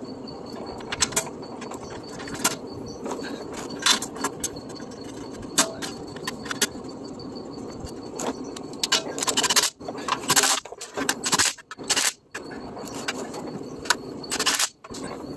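Metal clinks and scrapes as the transmission pan and its bolts are fitted up by hand. About nine seconds in, a cordless ratchet runs in several short bursts, driving the pan bolts in.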